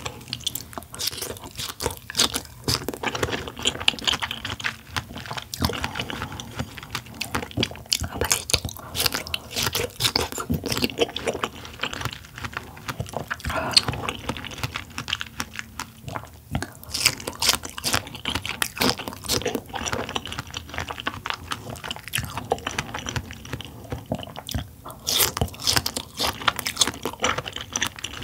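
Close-up eating sounds of red dragon fruit being bitten and chewed: wet mouth smacks and soft crunches coming quickly and unevenly.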